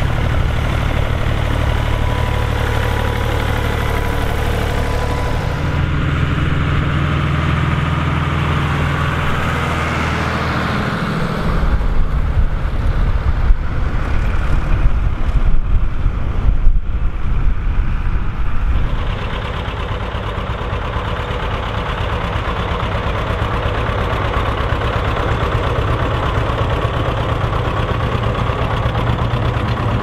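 Diesel tractor engines running under load as they pull ploughs, heard in several shots in turn. First a steady low engine note. About a third of the way in, a louder, rougher stretch follows as a John Deere with a mounted plough works close by. Then a steady note again, from a John Deere 720's two-cylinder diesel.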